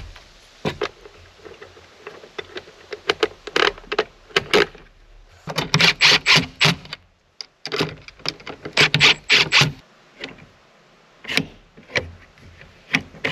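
Cordless drill running in short bursts, about three times, as it drives the nuts and bolts of a flush-mount paddle latch into a door panel. Sharp metal clicks and clanks from the hardware and frame come in between.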